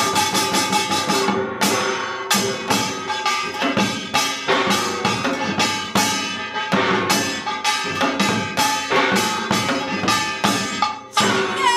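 Korean pungmul percussion ensemble playing a fast, driving rhythm on janggu hourglass drums and a buk barrel drum, with ringing metal gongs over the strokes. The playing thins out briefly near the end, then comes back with a strong stroke.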